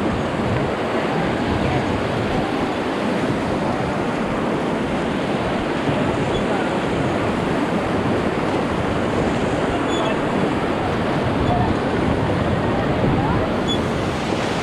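Whitewater of the Beas River rushing around a raft as it runs a rapid: a steady, unbroken wash of churning water.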